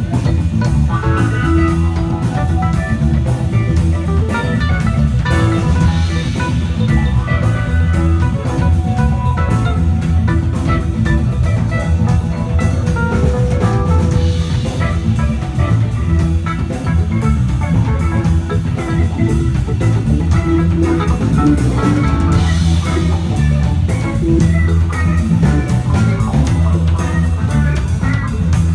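A band playing an instrumental passage: guitar over bass guitar and a drum kit, with no singing.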